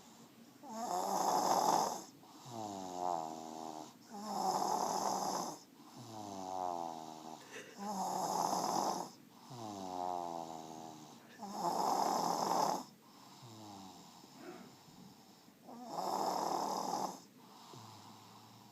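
Sleeping baby snoring in a steady rhythm: five rough, noisy snores about three and a half seconds apart, each followed by a pitched breath that falls in tone.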